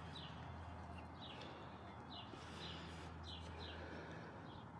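Faint small-bird chirps, short and falling in pitch, repeating irregularly about once or twice a second over a steady low hum.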